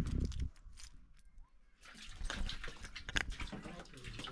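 A low thud at the very start, then short, irregular wet splashes and sloshes of water in a plastic bucket as hands work in it.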